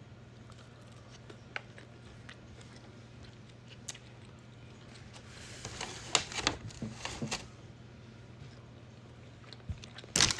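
Close-miked eating sounds: sparse wet mouth clicks, then a cluster of crisp crunching bites and chewing about halfway through, over a faint steady hum. A loud crinkle of packaging or a container starts right at the end.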